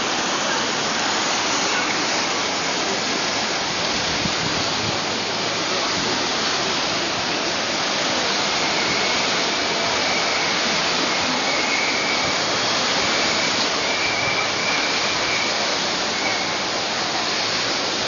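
Steady, even hiss of falling rain. A faint high-pitched tone comes and goes in the second half.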